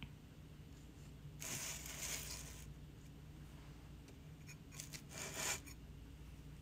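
Two short bursts of scraping and rubbing, about a second in and again near the end, as a bisque-fired ceramic palette is shifted about on the table and worked with a glaze brush.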